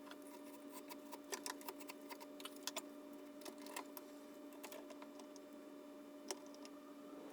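Scattered light clicks and taps of small parts being handled and set at a bench vise, over a steady electrical hum.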